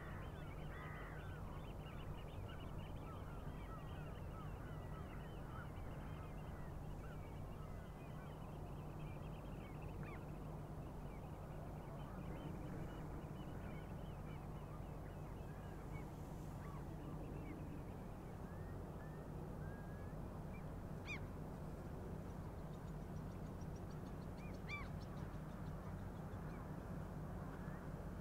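Many birds calling at once in a dense chatter of short honks, thinning after about ten seconds, over a steady low drone of ship engines.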